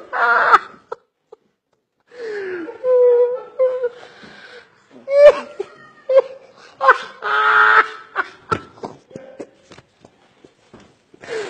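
A man in an uncontrollable laughing fit: irregular high squeals and gasping bursts, breaking off briefly about a second in, then starting up again.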